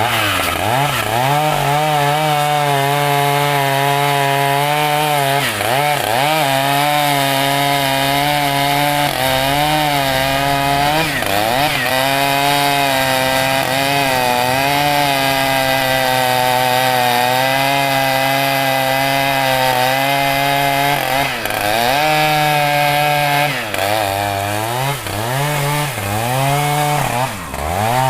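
Two-stroke chainsaw running at high throttle while cutting mahogany wood. Its engine note dips and recovers several times as the chain bogs down in the cut.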